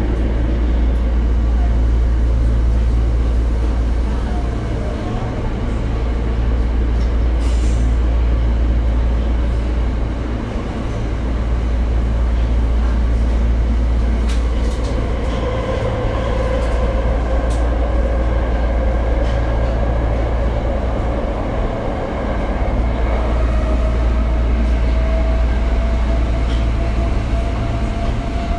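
Tokyo Metro 02 series subway train running: a steady deep rumble of wheels and running gear, with a thin motor whine that slowly rises in pitch over the second half.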